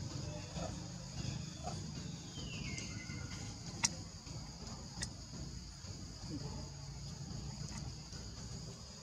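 Steady high-pitched chirring of insects in the forest, with a single falling whistle about two and a half seconds in and two sharp clicks near the middle.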